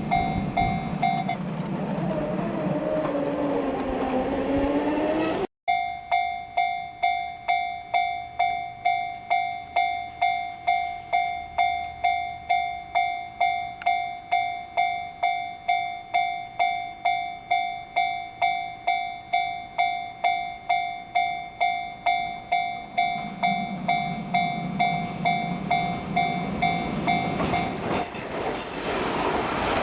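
Japanese railway level-crossing warning bell ringing steadily at about two strikes a second. Near the end an approaching train's rumble and rail noise rise and drown out the bell. In the first seconds, before a short break, a wavering, gliding whine sounds over the bell.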